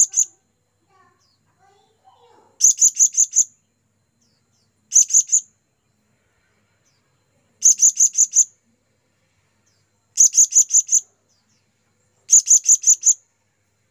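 Blue-crowned hanging parrot (serindit) calling: loud bursts of three to five quick, sharp, high-pitched notes, repeated about every two and a half seconds. This is the call used to lure wild serindit.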